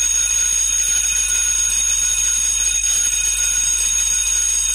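Alarm clock bell ringing continuously at a steady, loud level: a wake-up alarm.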